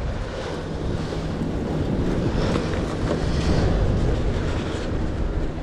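Wind buffeting the microphone over the steady wash of sea waves against a concrete breakwater.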